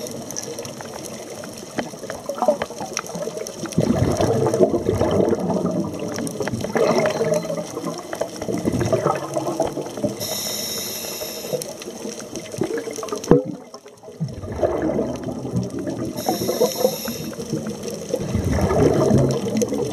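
Scuba diver breathing through a regulator underwater: long bubbling exhalations, broken by a short hissing inhale about ten seconds in and another about sixteen seconds in.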